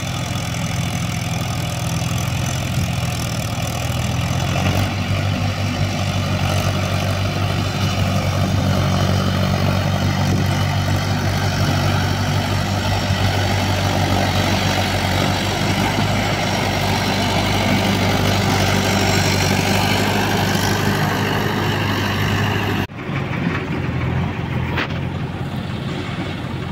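Diesel engines of a Mahindra 475 DI tractor and a JCB backhoe loader running steadily. The engine note shifts about four seconds in, and near the end the sound cuts abruptly to a quieter engine.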